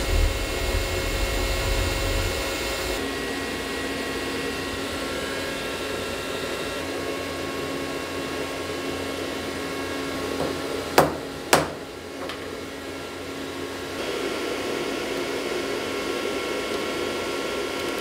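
Steady whirring of a CNC milling machine, with two sharp metallic knocks about eleven seconds in, half a second apart.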